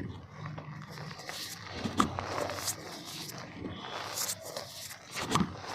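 Dry black mud dirt crumbling and crunching in a clay pot, in irregular crackles, with a sharper crack about two seconds in and another about five seconds in.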